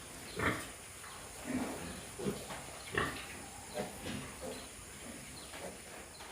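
Pigs grunting and squealing in a series of short calls, the loudest about half a second and three seconds in.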